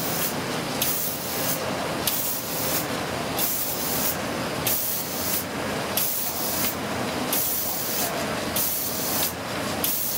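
Octans 126WS paper sheeting machine running, a continuous rushing, hissing machine noise that surges in a regular rhythm of repeated pulses.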